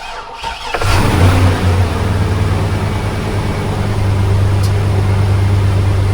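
Supercharged 5.3-litre V8 (Magnuson MagnaCharger blower) of a 2003 Chevrolet Suburban being started: brief cranking, the engine catches under a second in, flares up, then settles into a steady idle.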